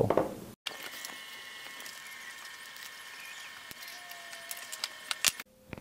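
Quiet room tone with a faint steady electronic whine, then a few small sharp clicks about five seconds in, from wires being handled with side-cutting pliers. The sound drops out completely for a moment about half a second in and again just before the end.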